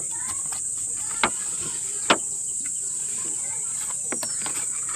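Steady high-pitched chorus of insects, with two sharp clicks about a second and two seconds in.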